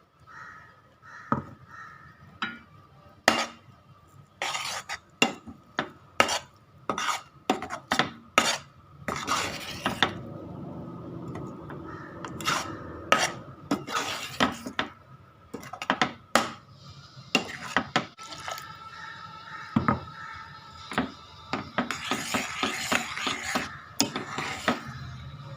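A metal spoon or ladle stirring in a cooking pot, clinking and scraping against its sides and rim in irregular knocks, with a longer scraping stretch near the end.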